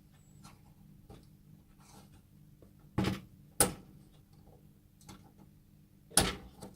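Three sharp clicks or knocks: one about three seconds in, a second just over half a second later, and a third near the end, with faint scattered ticking between them.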